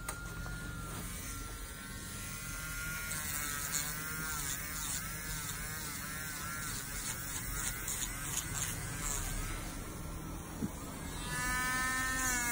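Electric nail drill running with a high whine, its pitch wavering up and down as the bit grinds the edge of a big toenail; it gets louder about eleven seconds in.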